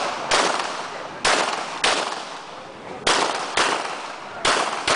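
Glock 17 9mm pistol fired rapidly in quick pairs, seven sharp shots with the pairs about half a second apart, each shot trailing off in a short echo.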